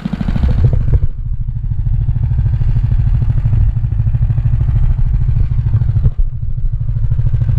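Small gas engine of a bed redefiner (bed edger) running steadily under load while cutting a bed edge, with brief dips about a second in and again near six seconds.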